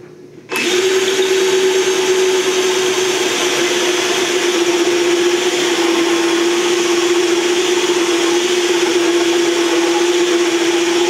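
Electric drill spinning a hole saw into the wooden top of a beehive, starting about half a second in with a steady whine and the rasp of the saw cutting wood.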